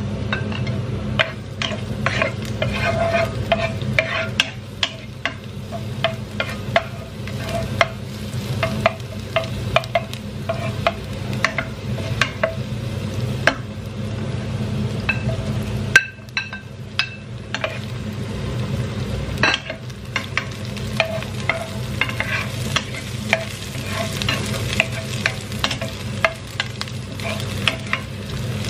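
Chopped garlic and shallots frying in hot oil in a nonstick pot, with many short crackles and spits, and a spatula stirring and scraping against the pan. A steady low hum runs underneath.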